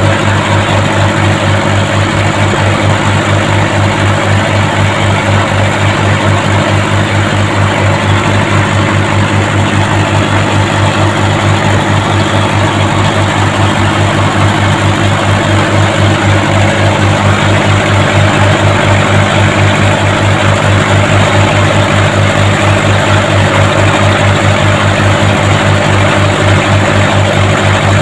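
Mitsubishi Colt Diesel four-cylinder truck engine, mounted in a fishing boat, running steadily with an even, fast diesel pulse.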